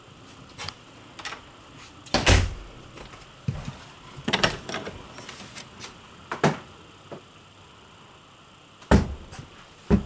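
Scattered knocks and thumps of someone moving about inside a travel trailer, irregularly spaced. The loudest comes about two seconds in and another near the end.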